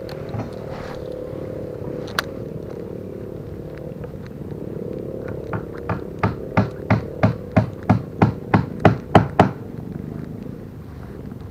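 A steady low engine drone, with a regular run of about a dozen sharp clicks, about three a second and growing louder, through the middle of the stretch.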